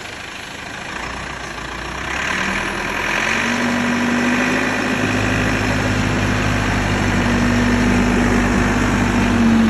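Backhoe's diesel engine running after a jump start. It grows louder over the first few seconds, then holds a steady hum.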